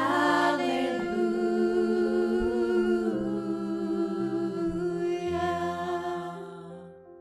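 A woman's solo singing voice holds long notes with vibrato over sustained accompaniment chords that change every second or two. The sound fades out near the end.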